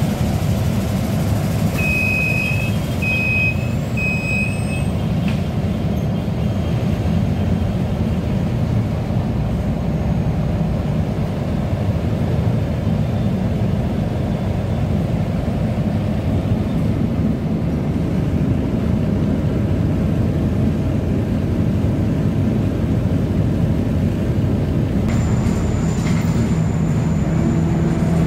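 Steady low engine rumble inside a Volvo city bus. Three short high beeps come about two to five seconds in, the door warning as the doors close.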